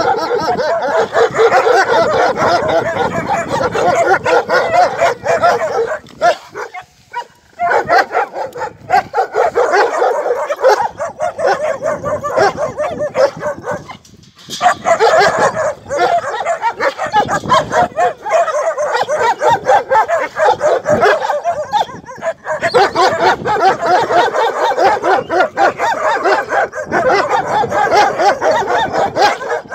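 Several Czechoslovakian wolfdogs barking and yipping in rapid, nearly unbroken volleys, with short lulls about seven and fourteen seconds in.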